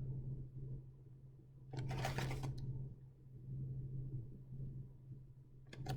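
Food packaging being handled and rustled while someone searches it for a date stamp, with one louder rustle about two seconds in, over a steady low hum.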